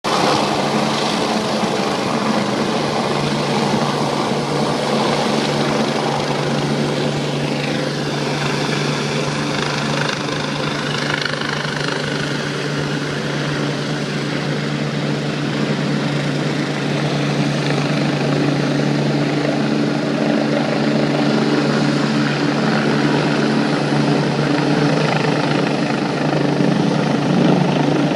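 Helicopter running with a steady, continuous drone and a low hum, growing slightly louder in the second half.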